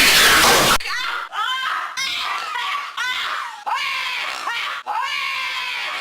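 A woman screaming over and over in high, wavering shrieks about once a second, after a loud harsh burst at the start.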